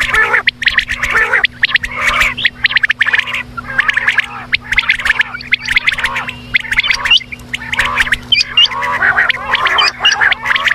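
Quail calling in a dense, rapid chattering rattle, with a few short rising chirps in the second half.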